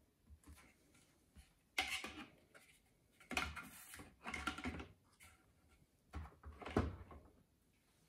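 A few irregular knocks, clunks and scraping rustles of things being handled and set down, about four in all, the loudest a sharp knock near the end; no motor is running.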